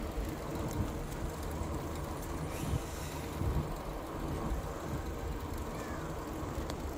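Road and wind noise of a fat-tire e-bike being ridden slowly while towing a child trailer: a steady, uneven low rumble.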